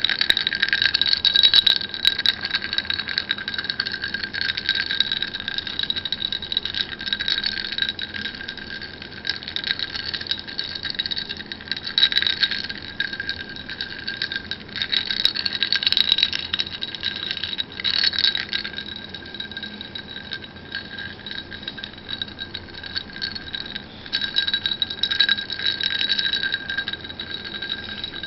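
Ice cubes clinking and rattling against a drinking glass of water, setting the glass ringing with a steady bell-like tone under the many small clinks.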